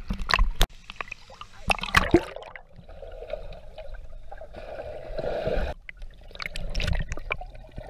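Swimming-pool water splashing close by, then a muffled churning and bubbling heard underwater as a child kicks and swims past. Sharp splashes come at the start, about two seconds in, and again near the end.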